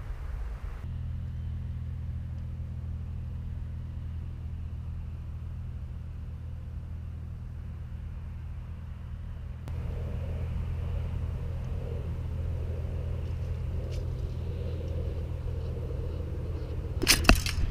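Two shotgun shots fired in quick succession near the end, over a steady low rumble.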